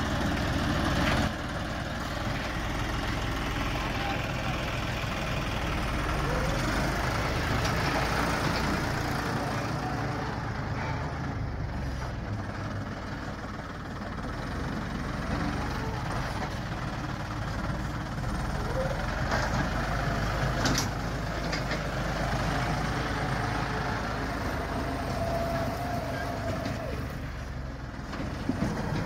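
John Deere 5210 GearPro tractor's three-cylinder diesel engine running steadily under load as the tractor pushes soil with its front dozer blade, the engine note shifting in pitch now and then.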